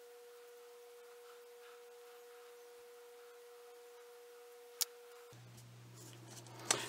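Near silence with a faint, steady pure tone that cuts off suddenly about five seconds in, giving way to a low steady hum; a single click just before the cut.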